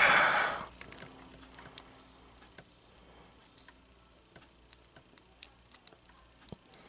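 Small plastic Transformers Botbots figure handled in the fingers, its parts giving scattered faint clicks and taps. A brief breathy hiss at the very start fades out within the first second.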